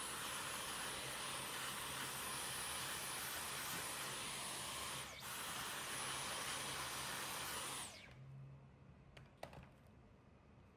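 Vacuum cleaner running steadily, sucking loose coffee grounds out of a coffee grinder's discharge chute, a high whine over the rush of air. It dips briefly about five seconds in and shuts off about eight seconds in.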